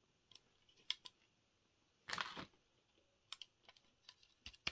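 Small plastic clicks of a Krusty the Clown talking toy figure being handled and its button pressed, with a short rustle about two seconds in. The toy gives no sound, its battery probably dead.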